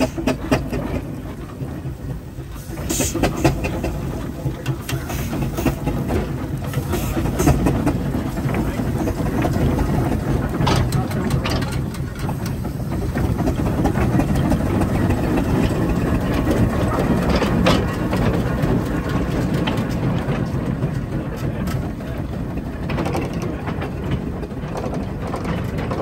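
J&H McLaren steam traction engine running and moving off while towing a trailer, with a steady, rapid mechanical clatter. It gets louder about three seconds in.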